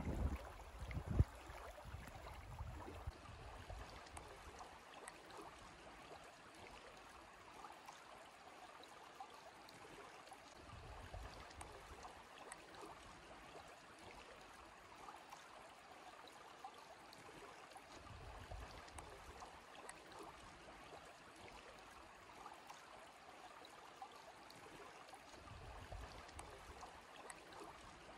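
Faint, steady rush of a river flowing and rippling along a gravel bank, with a few soft low rumbles now and then.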